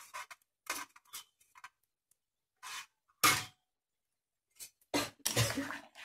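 A run of short kitchen-utensil scrapes and knocks against a cooking pan, the loudest about three seconds in. Near the end, a spatula stirs through the pumpkin pieces simmering in the pan.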